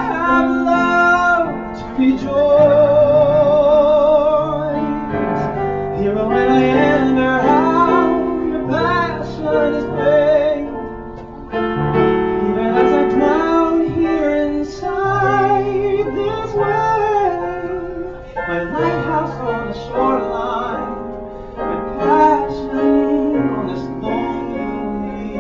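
A male tenor singing a slow song with wide vibrato on held notes, accompanied by piano.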